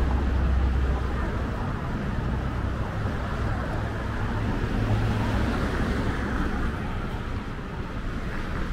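Road traffic, cars passing in a steady stream. One vehicle's low rumble is loudest in the first second, and another pass swells about five to six seconds in.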